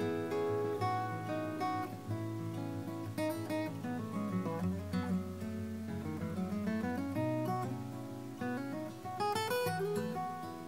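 Background music: acoustic guitar playing a gentle plucked melody with strummed chords.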